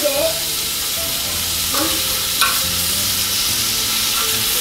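Scallops sizzling steadily as they sear in a hot skillet, with a utensil stirring and scraping them in the pan. A sharp click comes about two and a half seconds in.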